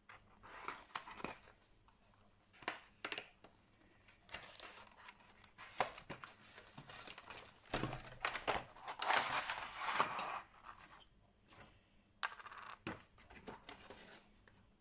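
Cardboard craft-kit box being opened and unpacked by hand: irregular tearing, crinkling and scraping of cardboard and packaging in bursts, busiest about eight to eleven seconds in, with a sharp click a little later.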